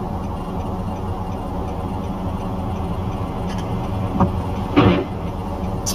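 Steady low rumble of a stopped car's idling engine heard inside the cabin, with a short knock about four seconds in and a louder brief thump just before five seconds.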